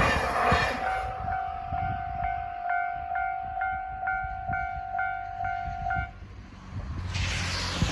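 The tail of a passing train fades in the first second while the Japanese level-crossing warning bell keeps ringing, an electronic clang repeating about twice a second over a steady tone. The bell cuts off about six seconds in, once the crossing clears, and wind noise rises near the end.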